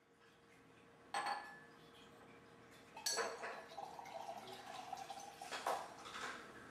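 Lab glassware and containers being handled on a bench: three sharp clinks and knocks, about a second in, three seconds in and near the end, with faint liquid handling between them.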